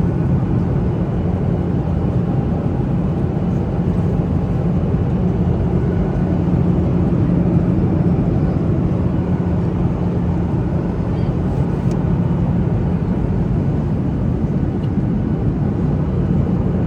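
Steady, loud drone of a vehicle in motion, with a constant low hum under a wash of engine and air noise.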